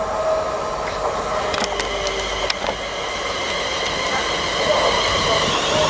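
Siemens Desiro Class 350 electric multiple unit running into the station, a steady whine of several held tones over running rumble, growing louder as it draws nearer. A few sharp clicks come about two seconds in.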